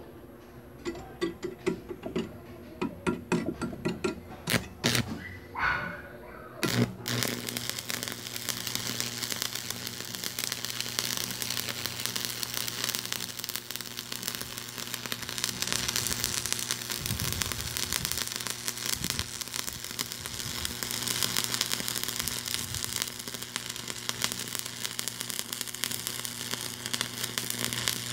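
Stick (coated-electrode) welding arc on thin steel sheet: after several seconds of scattered clicks and taps, the arc catches about seven seconds in and crackles steadily as a butt-joint bead is run, with the steady hum of a transformer welding machine underneath.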